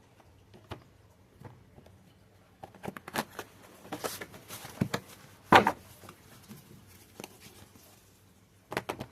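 Large tarot cards being shuffled and handled: scattered taps and snaps of the cards, with one loud sharp snap about halfway through.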